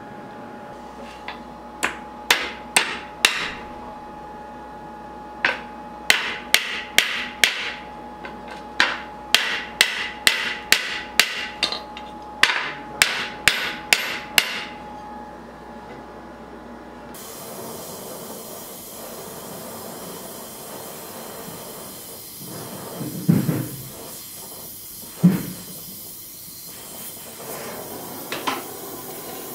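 Hammer striking a steel knife guard on its tang over the anvil, in quick runs of four to seven sharp blows at about three a second. After a pause a steady hiss sets in, with two duller thumps and a few light taps near the end.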